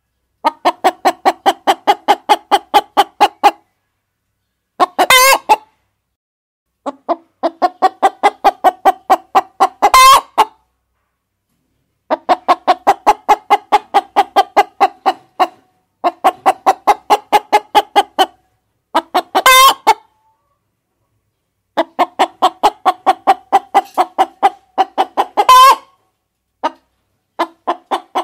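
Hens clucking in rapid runs of even pulses, about four to five a second, that stop abruptly between runs. A sharper, louder squawk comes four times.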